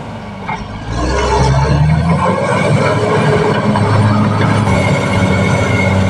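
Caterpillar D6R XL bulldozer's diesel engine running. It is quieter for about the first second, then comes up louder and holds steady.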